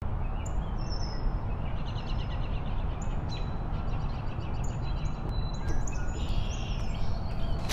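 Outdoor ambience: small birds chirping and trilling in short repeated phrases over a steady low background rumble.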